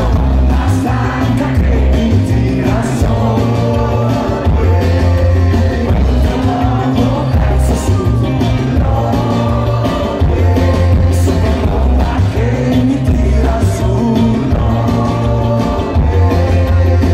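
Live rock band playing loud through a concert PA: a lead vocalist singing over electric guitars, keyboards, bass and drums.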